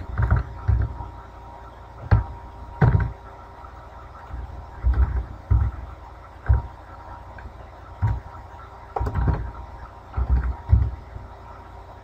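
Computer keyboard keystrokes and mouse clicks, heard as irregular dull thumps in small clusters with short pauses between.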